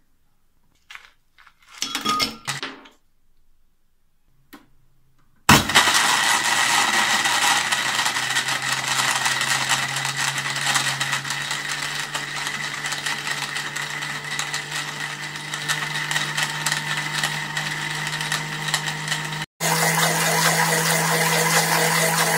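A few short clinks, then from about five seconds in an electric blender runs steadily, crushing ice cubes with mint leaves. Near the end it cuts out for an instant and starts again at a slightly higher pitch.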